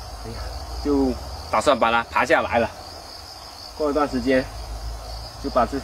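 Steady high-pitched chirring of crickets, under a man's voice speaking in several short phrases.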